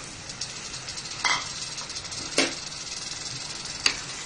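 Mutton pieces sizzling in hot oil and spice paste in an aluminium pressure cooker as they are stirred in, with three sharp knocks of the stirring spoon against the pan.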